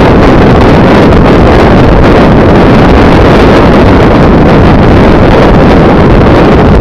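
Wind buffeting the microphone of a camera on a moving vehicle, mixed with engine and road noise; loud and steady, with no distinct events.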